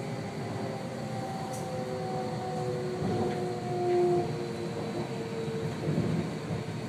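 Vancouver SkyTrain Canada Line car running along the track, heard from inside at the front: a steady rumble of wheels on rail, with the electric drive's whine in several tones that fall slightly in pitch. It swells briefly louder about four seconds in.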